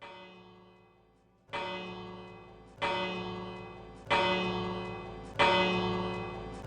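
A bell struck four times, about 1.3 seconds apart, each stroke louder than the last and ringing on between strokes, after the faint tail of an earlier stroke.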